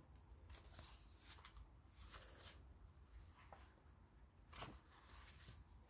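Near silence: faint room tone with a few soft, brief rustles, the loudest about four and a half seconds in.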